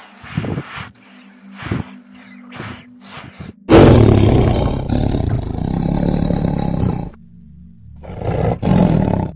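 Tiger roaring: one long, loud roar starting suddenly about four seconds in, and a shorter one near the end. Before it there are short hissing bursts from a snake.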